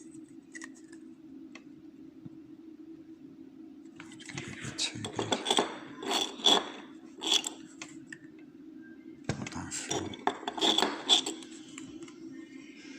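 Small metal lock parts clicking and clinking as a lock cylinder is taken apart, in two clusters of sharp clicks about four and nine seconds in, over a steady low hum.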